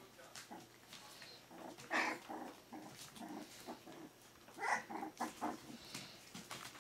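Four-week-old Pyrenean Shepherd puppies yapping and whimpering in short calls as they play-fight, loudest about two seconds in and again near five seconds.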